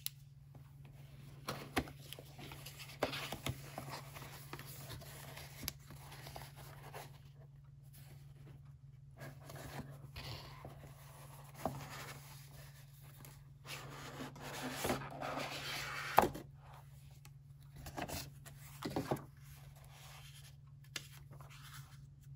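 Cardboard packaging handled by gloved hands: the box and its inner tray scraping and rubbing as they are slid apart and unfolded, with paper rustling and scattered taps. One sharp click about two-thirds of the way through is the loudest sound, over a faint steady low hum.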